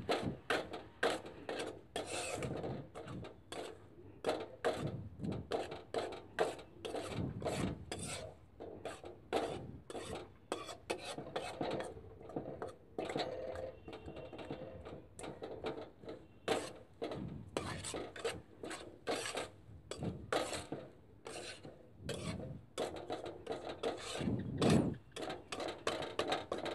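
Metal spatula scraping and stirring mustard oil cake as it is roasted in a pan, a steady run of gritty rasping strokes, about two or three a second.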